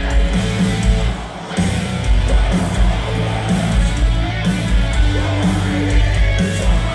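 Live metalcore band playing at full volume, heard from within the crowd: heavy distorted guitars, bass and pounding drums with vocals. The low end drops out for a moment about a second and a half in, then the full band crashes back in.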